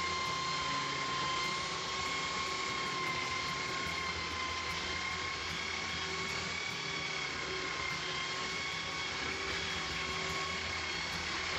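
Electric belt sander running steadily on a rough-cut, fairly green wooden plank, being pushed along the board to smooth it: a steady motor whine over the hiss of the belt on the wood.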